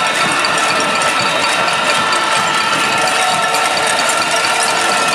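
Dense, continuous metallic clatter of many pots and pans being banged by a protesting crowd in a cacerolazo.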